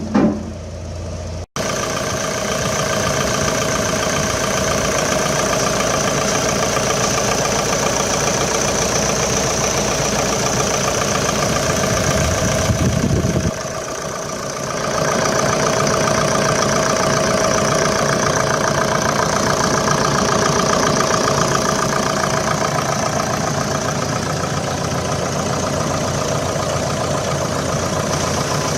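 Terex TW110 wheeled excavator's diesel engine running steadily at idle, with a short break after about a second and a half and a brief dip about halfway through.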